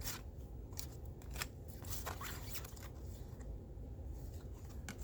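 Trading cards being handled and flipped through: a few soft, scattered flicks and rustles.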